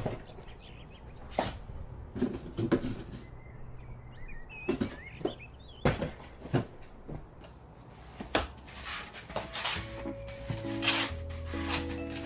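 A series of separate light knocks and clatters, wood-like, as objects are handled and set down, with some rubbing between them. Soft background music comes in near the end.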